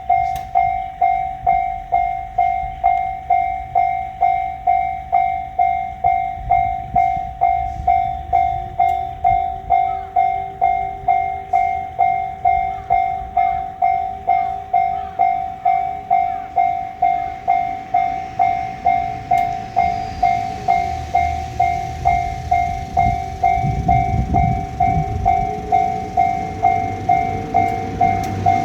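Japanese level-crossing alarm bell clanging steadily at about two strokes a second. Under it, a diesel railcar rumbles through the crossing, loudest a little over 20 seconds in.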